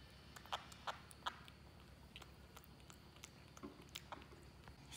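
Baby monkey chewing noodles: faint soft smacking clicks, with three louder ones in the first second and a half, over a low steady hum.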